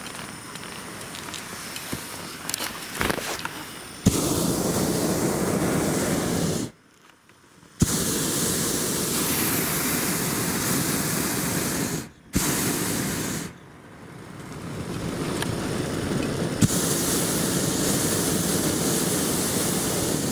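Hot-air balloon's propane burner firing in long blasts, heard from the basket: it cuts in sharply about four seconds in, shuts off for about a second, then fires again with short breaks.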